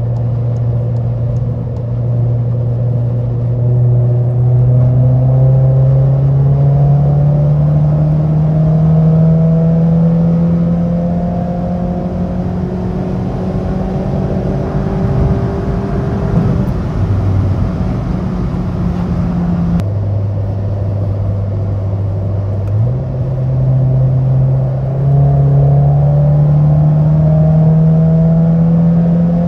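Volkswagen GTI's turbocharged 2.0-litre four-cylinder, heard from inside the cabin, pulling hard in fourth gear with its pitch climbing steadily for about sixteen seconds. It then eases off and sits lower for a few seconds before climbing again in a second pull near the end.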